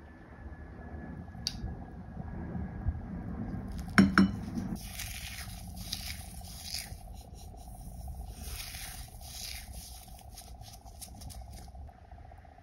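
A low airplane rumble for the first few seconds, then a sharp knock about four seconds in. After that comes a dry, crackly rustling in short bursts as toasted sesame seeds are crushed between gloved fingertips over rice.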